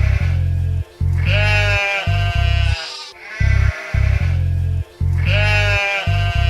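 Sheep bleating twice, each a wavering, falling call, over background music with a steady bass beat.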